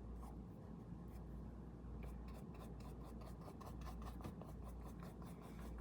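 Quick, faint scratchy strokes of a drawing or painting tool on the painting's surface, about five a second, starting about two seconds in, over a low steady room hum.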